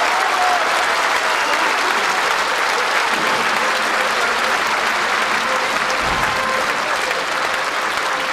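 Audience applauding after the final chord of a choral and orchestral number: steady, dense clapping.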